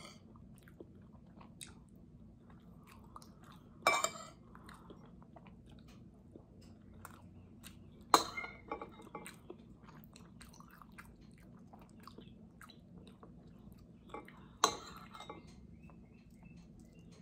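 A person chewing a mouthful of rice and sardines, with faint small mouth and food sounds. A metal spoon clinks sharply against the ceramic plate three times, about 4, 8 and 14.5 seconds in, with a short ring after each.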